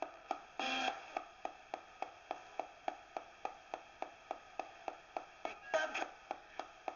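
Direct Linc ghost box radio sweeping through stations: a steady ticking of about three station hops a second, with two brief snatches of broadcast audio, one near the start and one about six seconds in.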